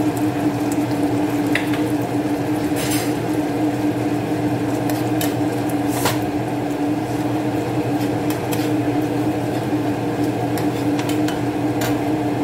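Sauce simmering and sizzling in a nonstick frying pan, with a metal spoon scraping and clinking against the pan now and then as it is stirred. Under it runs a steady machine hum.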